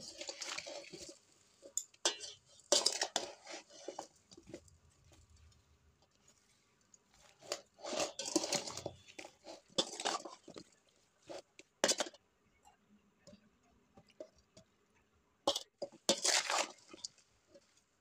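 Raw mango pieces being mixed with ground spices and oil in a steel bowl: irregular bursts of crunching and rustling with quiet gaps between them, and one sharp click about twelve seconds in.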